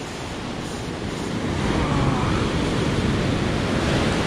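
Ocean surf breaking and washing up the beach, with wind on the microphone; the wash grows louder about a second and a half in.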